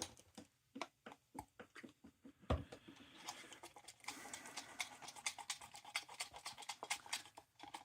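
Faint, irregular light clicks and taps, several a second, from small objects being handled.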